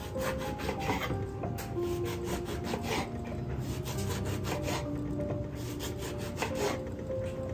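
Kitchen knife cutting through whole oranges on a wooden cutting board: runs of quick strokes as the blade works through the peel and flesh and meets the board, with soft music underneath.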